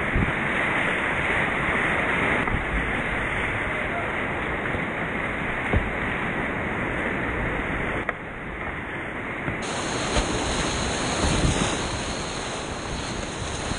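Rushing whitewater of a creek rapid, heard up close from a kayak running it, with water splashing over the boat and camera. A few brief knocks stand out above the steady rush.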